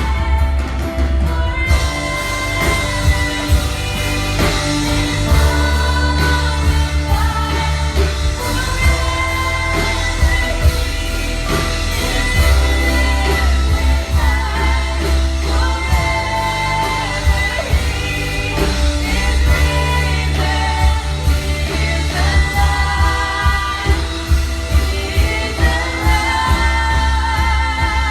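A contemporary worship song played by a band with a heavy, steady bass, and singing throughout.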